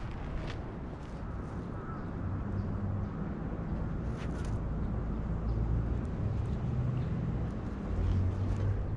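Steady low rumble of outdoor city background noise, likely distant traffic, with a few faint clicks and a brief rustle about four seconds in.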